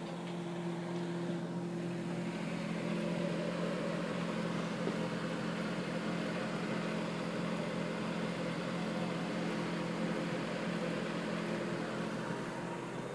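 A steady low hum made of several fixed tones, under an even hiss that grows a little louder about two seconds in.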